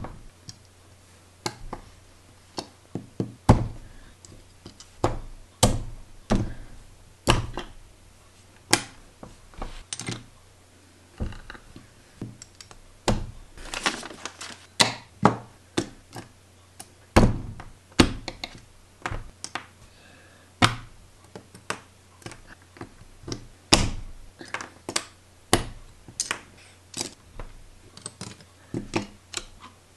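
Plastic LEGO bricks being tapped, pressed and clicked together with a hand-held tool on a tabletop: irregular sharp clicks and knocks, roughly one every second or so. Around halfway there is a denser flurry with paper rustling as the instruction sheet is handled.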